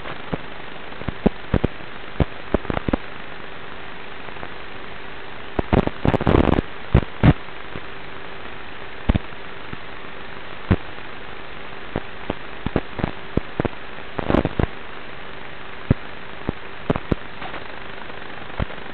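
Onboard audio from a Traxxas Slash 1/10 scale RC truck driving over a dirt road: a steady hiss with a faint hum, broken by irregular sharp knocks and rattles as the chassis jolts over bumps and gravel, with dense clusters about six seconds in and again near fourteen seconds.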